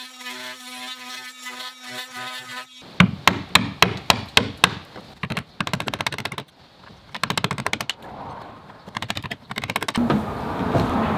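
A cordless oscillating multi-tool buzzing in short pulses as it cuts into wooden window trim. About three seconds in it gives way to a hammer striking a wood chisel: a run of sharp blows about four a second, then several quicker, lighter runs of taps.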